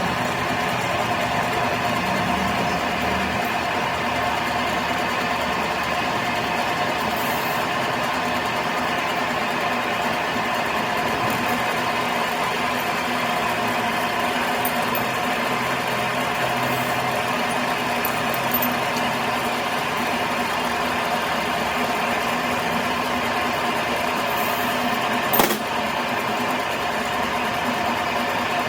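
A motor-driven workshop machine running steadily with an even hum, with one sharp click near the end.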